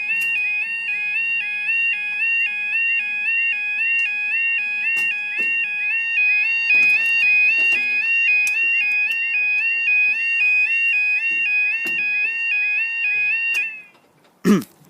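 Railway level crossing yodel alarm sounding loud, a rapid electronic two-tone warble that stops suddenly near the end. It is at full volume: its quieter night mode has not yet been activated.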